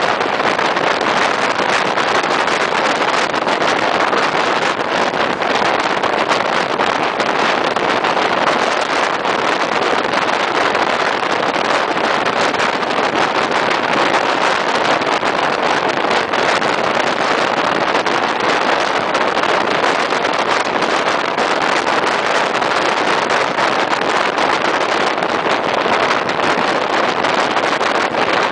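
Steady rush of air past a microphone held out of a moving train's window, mixed with the train's rolling noise on the rails at speed.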